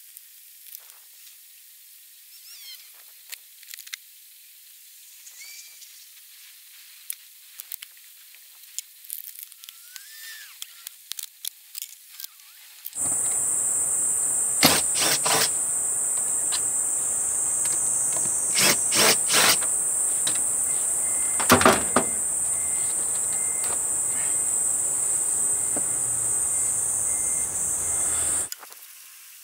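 A cicada's loud, steady, high-pitched buzzing starts abruptly about halfway in and cuts off shortly before the end. A few sharp knocks sound over it, and faint bird chirps come before it.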